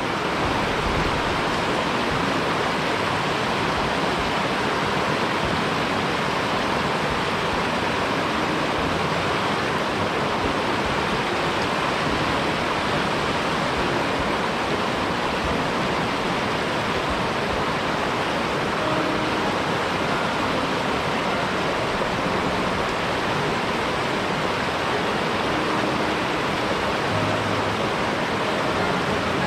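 Steady rush of water from a fast-flowing mountain headwater stream.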